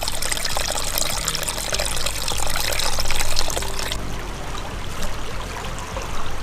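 Small spring-fed stream trickling and splashing over mossy rocks. About four seconds in it drops to a softer, steady flow.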